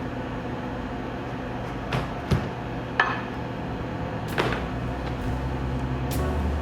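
A steady low hum with five sharp clicks and knocks scattered through it; a deeper hum comes in near the end.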